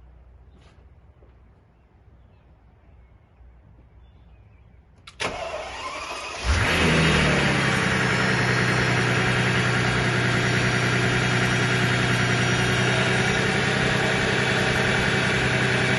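2005 Mercedes-Benz S600's twin-turbo V12 started on its first run after an oil change: the starter cranks for about a second, about five seconds in, then the engine catches with a jump in level and settles into a steady idle.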